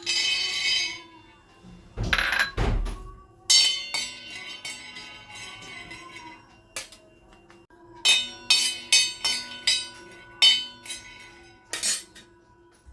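Kitchen utensils clinking and knocking: a run of sharp, irregular clinks, with two heavier thuds about two seconds in.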